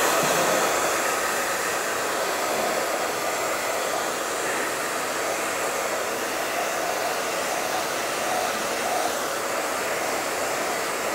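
Handheld hair dryer blowing steadily, drying the coat on a small white craft box.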